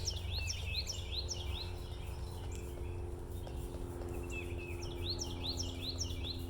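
A songbird singing two bouts of quick repeated chirps, each about two seconds long, the second starting past the middle. Underneath runs a steady low hum.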